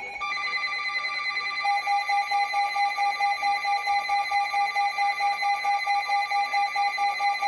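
Emergency Alert System attention signal: a loud, steady alert tone of two pitches sounding together, starting abruptly.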